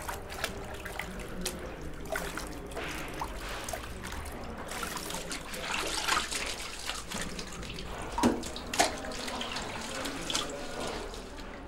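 Water trickling and splashing into a plastic bucket, with drips and scattered small knocks, as cloths are wrung out for cleaning. A couple of louder splashes come about two-thirds of the way through.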